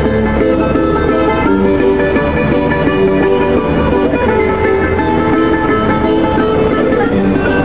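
Background music led by a plucked, strummed guitar, with notes changing every second or so.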